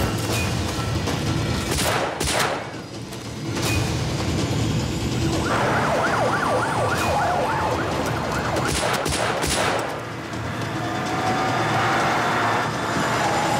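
Police car siren sounding a fast rising-and-falling yelp for about four seconds from around the middle, with a few sharp bangs about two seconds in and again near the siren's end.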